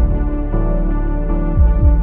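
Background music: sustained synthesizer chords with deep bass-drum hits, one at the start and two close together near the end.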